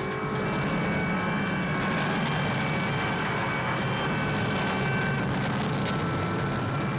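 Noise music: a dense, steady wall of rumbling noise with a heavy low drone and thin sustained high tones over it.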